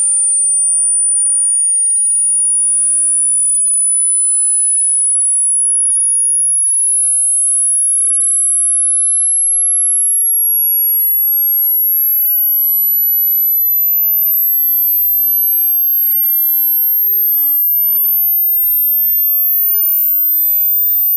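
A generated pure sine-wave tone, very high-pitched and rising slowly and steadily in pitch: the upper part of a 20 Hz to 20 kHz hearing-test frequency sweep.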